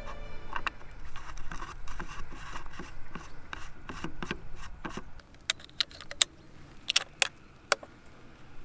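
A-tec Wave moderator being screwed onto a .22 LR rifle's threaded barrel: metal rubbing and scraping with small clicks. After about five seconds it goes quieter and a handful of sharp clicks follow, the loudest about six seconds in.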